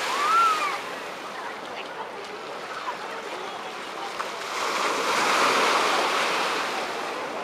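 Ocean surf washing in at the shoreline, with a wave swelling and breaking about five seconds in. A brief high call sounds near the start.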